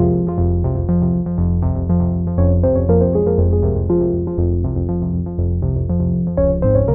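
Background music: a quick run of short notes over a repeating bass line that moves in steps.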